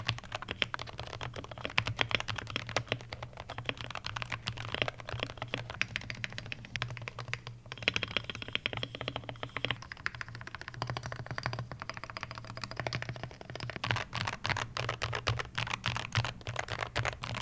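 Fast typing on Wooting 80HE mechanical keyboards in stock configuration, in PCR ABS and zinc alloy cases: a dense, continuous clatter of keystrokes with a short break about eight seconds in.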